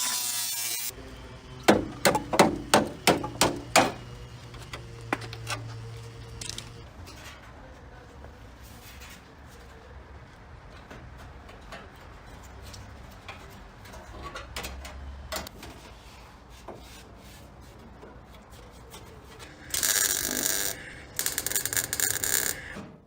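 Car bodywork in a workshop: a quick run of about eight loud knocks about two seconds in, then a low steady hum with faint clicks, and two bursts of hissing noise near the end.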